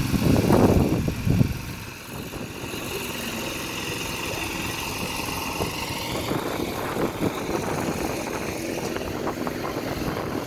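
Riding in a moving vehicle: a steady run of engine and road noise, with a loud rush of wind on the microphone in the first second or so.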